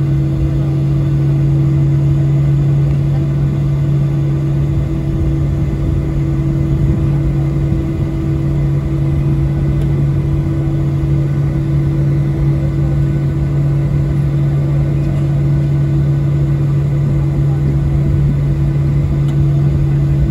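Steady cabin noise of a Boeing 737-800 taxiing after landing: its CFM56 engines at idle and the air rush, a constant low hum with a fainter steady tone above it.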